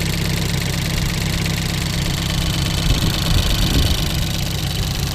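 Ford Focus race car engine idling steadily while it warms up.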